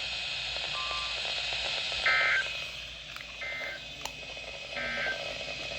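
Emergency Alert System end-of-message signal from a weather radio: three short bursts of screeching digital data tones, a little over a second apart, marking the end of the warning broadcast. A steady static hiss from the radio runs under them.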